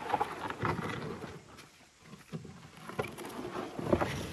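Wooden dugout canoe being shoved off a gravelly riverbank: the hull scrapes and knocks against the shore in two bouts, with a quieter stretch in between.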